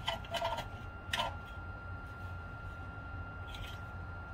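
BioLite CampStove 2's fan running at its medium setting, a steady whine over a low hum, with a few light clicks and knocks in the first second and a half and one more near the end.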